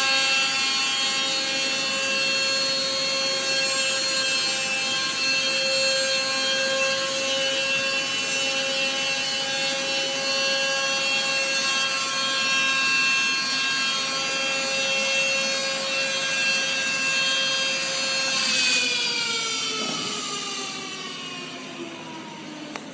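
High-speed spindle of an industrial deburring robot running with a steady high-pitched whine over a rasping noise, then spinning down about three-quarters of the way through, its whine falling in pitch and fading.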